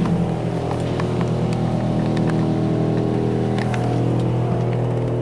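Futura Millennium touchless car wash machinery running with a steady mechanical hum, heard from inside the car, with a few faint scattered ticks.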